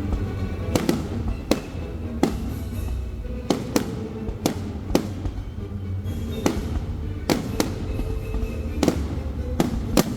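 Fireworks going off: a quick, irregular string of sharp bangs, some in close pairs, over a steady low rumble.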